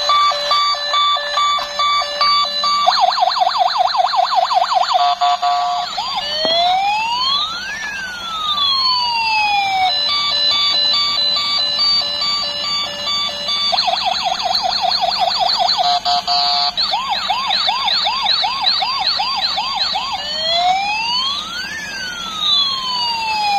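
Toy ambulance's electronic siren playing from its small built-in speaker, cycling through patterns: a steady alternating two-tone, a fast warbling yelp, and slow wails rising and falling in pitch. The sequence starts over about ten seconds in.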